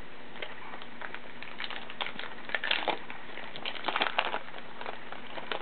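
Crinkling and crackling of a foil baseball-card pack wrapper being torn open and handled, in two busy spells about a second and a half and four seconds in, over a steady hiss.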